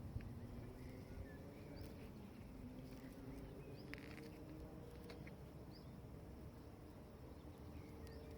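Faint outdoor ambience: a low steady rumble with a few faint bird chirps and occasional small clicks.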